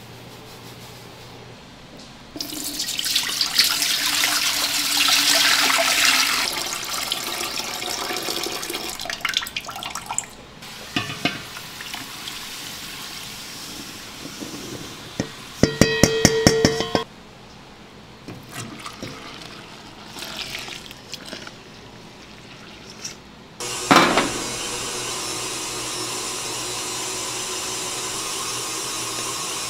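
Ingredients poured into a stainless-steel pot, a long rushing pour, followed by scattered small clinks and a short run of rapid clicking. A sudden steady hiss starts near the end while the milky mixture is stirred.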